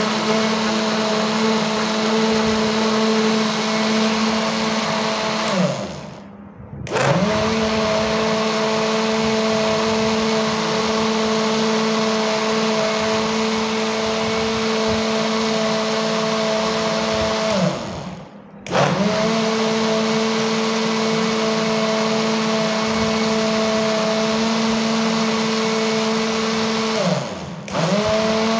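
Electric blender running at a steady pitch, puréeing apple pieces, two bananas and cold water into a smoothie. Three times the motor winds down and starts up again: about six seconds in, about eighteen seconds in, and briefly near the end.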